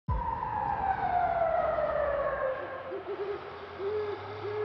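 A tone sliding steadily down in pitch over about two and a half seconds, then an owl hooting several times, a few quick hoots followed by longer ones, over a steady faint hiss.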